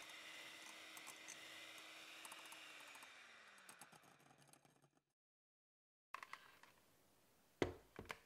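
Electric hand mixer running steadily, its wire beaters whisking egg whites into meringue in a glass bowl; about three seconds in the motor winds down in pitch and stops. Near the end come a few small clicks and a couple of sharp knocks.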